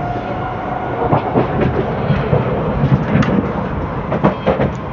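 Millennium C751B metro train running at speed, heard from inside the carriage: a steady rumble of wheels on the rails with scattered clicks and knocks.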